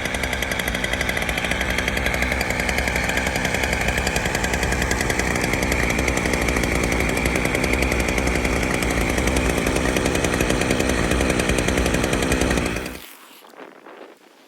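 Snowmobile engine running steadily at a fairly high, even speed, with a fast regular firing beat. The engine sound cuts off abruptly about 13 seconds in.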